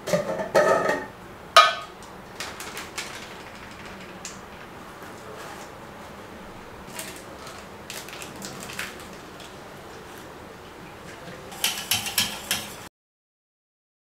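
Metal screw lid being twisted on a glass jar, a short grinding, ringing scrape followed by a sharp click. Light clinks and rattles of kitchen utensils follow, with a busier cluster of rattles near the end before the sound cuts out abruptly.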